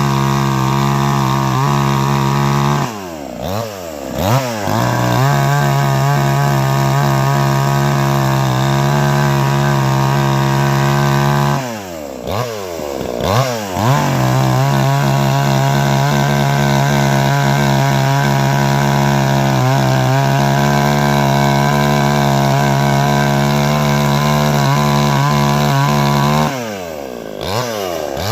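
Cheap two-stroke gas chainsaw running at high revs, the throttle let off and opened back up three times, so the engine pitch drops and climbs again each time.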